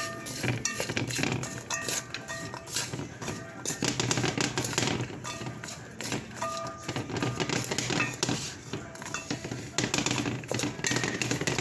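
A wooden spoon stirring and scraping crumbled plant-based ground meat around a metal pan, a busy run of quick scrapes and light knocks against the pan.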